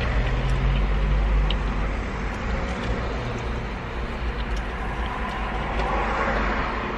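Steady low vehicle rumble heard from inside a car's cabin.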